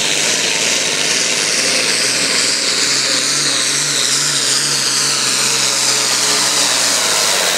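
Turbocharged International tractor's diesel engine running hard under load while pulling a sled. It holds a steady, loud note, with a high whine above it that slowly falls in pitch.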